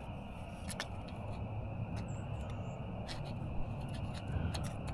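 Faint scattered clicks and scrapes of a 3D-printed plastic downspout adapter being handled and fitted onto the end of a metal greenhouse gutter, over steady outdoor background noise.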